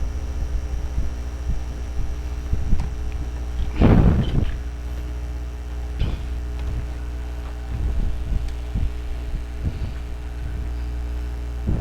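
Steady low electrical hum with light clicks and taps scattered through it, and one louder bump or rustle about four seconds in.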